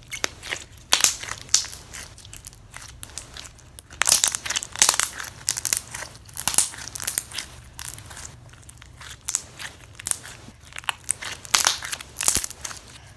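Brown clear slime being squished, stretched and folded by hand, making irregular crackling and popping clicks that come in denser spells.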